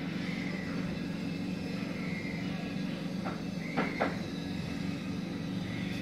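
Steady low hum, with a few sharp clicks around three to four seconds in and short high chirps now and then.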